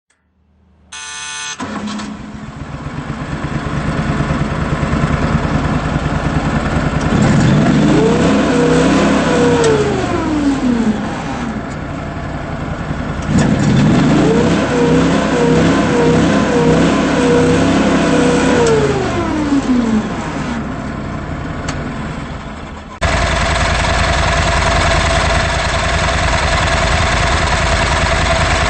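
Dandy Digger TLD-125 articulating loader's engine starting about a second in and settling into a run. It is revved up twice, held at high speed for a few seconds each time, then dropped back. Near the end the sound jumps abruptly to a louder, steady run.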